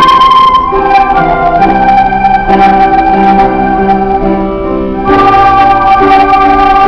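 Instrumental music, loud: a held melody line over sustained chords, the harmony changing every second or two, with a new chord entering about five seconds in.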